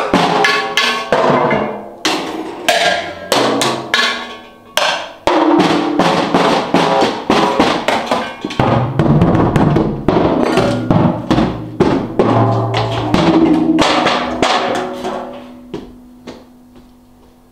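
Improvised hand-struck percussion: assorted household objects and drums hit in quick, irregular succession, many strikes leaving short pitched rings. The playing stops about 15 seconds in and one low ringing note fades out.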